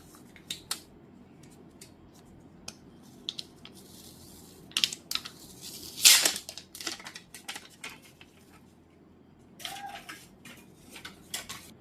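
Handling noises from an unboxing: scattered clicks, taps and short rustles as the phone, its box and its accessories are picked up and moved about. The loudest rustle comes about six seconds in.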